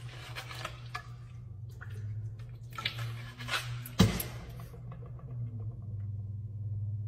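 Quiet indoor room sound with a low steady hum and scattered light taps, and a sharp click about four seconds in as a classroom door is pushed open.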